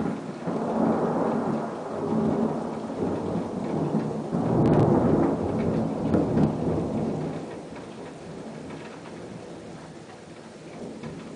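Thunder: a sudden crack, then a long rolling rumble that swells again a few times, loudest about five seconds in, and dies away over the last few seconds.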